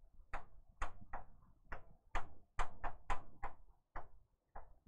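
A series of about a dozen short, sharp taps or clicks at an uneven pace.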